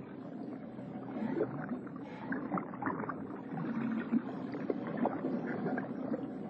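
Water sloshing and gurgling, with short splashy sounds scattered throughout.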